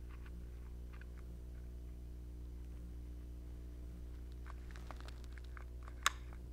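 Faint clicks from handling a manual dual-cartridge adhesive dispensing gun while a layer of adhesive is laid onto a metal mounting plate, with one sharper click about six seconds in. A steady low hum runs underneath.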